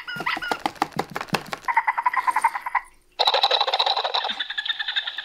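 Electronic sounds from a battery-powered talking dog toy's small speaker. First a run of clicks, then two buzzy, pulsing, high-pitched calls, the second longer and louder.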